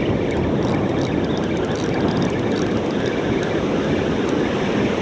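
Steady rush of breaking surf and foamy wash running up the sand, with wind buffeting the microphone.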